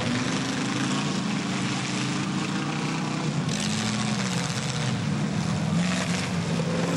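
Engines of several demolition derby cars running and revving together, their pitches rising and falling as the cars manoeuvre. A rougher, noisier stretch comes about halfway through.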